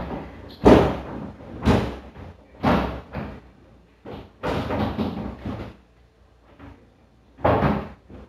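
Plastic basket of a Samsung French-door refrigerator's freezer drawer being set and pushed into place: several knocks and clatters about a second apart, a longer rattle around the middle, and another sharp knock near the end.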